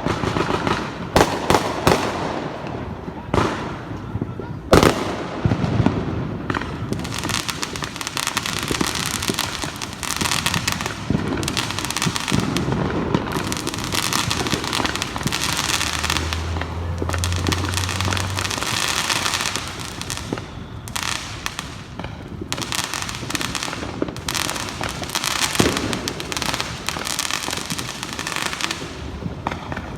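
Many firecrackers and fireworks going off at once: a few loud separate bangs in the first several seconds, then a dense, unbroken crackle of rapid small explosions.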